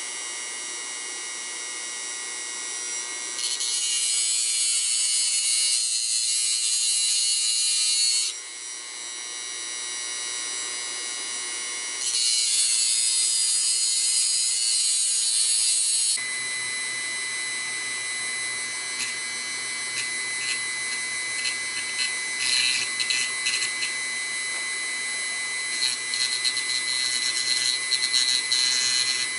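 Handheld rotary tool running at high speed with a small abrasive disc grinding a thin metal rod: a steady high whine that turns louder and harsher twice as the disc bites into the metal. About halfway through the pitch changes, and then scattered rasping crackles come and go as the rod is worked against the disc.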